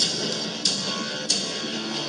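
Background music with guitar, marked by three sharp percussive hits about two-thirds of a second apart.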